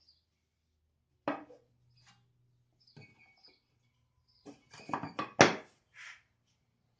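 Knocks and clunks of a magnetic featherboard being pushed loose and handled on the table saw: one sharp knock about a second in, a few light ticks, then a cluster of knocks about four and a half seconds in, the loudest of them just after.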